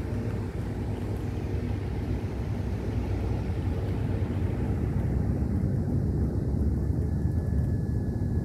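HP desktop computer running as it boots, its fans giving a steady low hum; a faint high whine comes in near the end.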